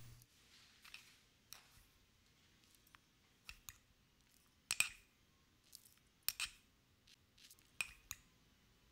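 Metal spoon clinking and scraping against an open sugar canister as sugar is scooped out, a series of faint, irregularly spaced clicks.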